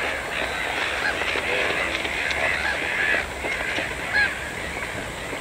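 A large flock of water birds calling at once: many overlapping short calls that rise and fall in pitch, with a few calls standing out above the rest.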